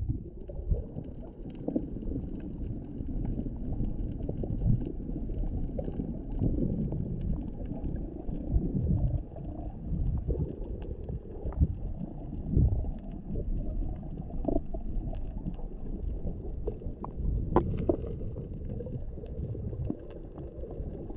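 Muffled underwater rumble of water moving around an action camera's waterproof housing as it is swept along on a selfie stick, with a few faint clicks.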